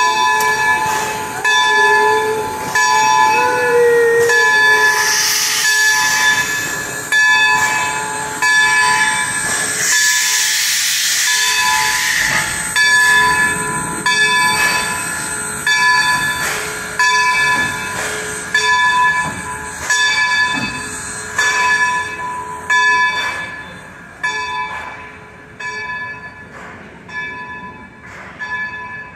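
Baldwin steam locomotive No. 26's bell ringing steadily, about one stroke a second, while the engine moves, growing fainter near the end. Steam hisses loudly twice, about five and ten seconds in.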